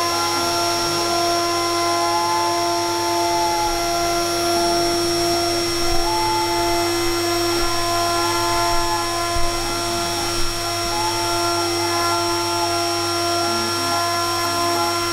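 CNC router engraving lettering into a plate: the spindle runs with a steady whine, while the stepper motors whir in short rising and falling tones as the cutter traces the letters.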